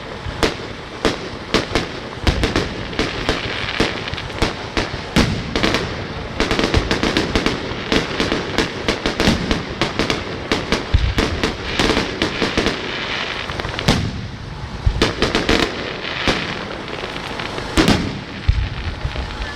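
Fireworks display going off: rapid, overlapping bangs and crackles, many per second, over a continuous rumble of bursting shells.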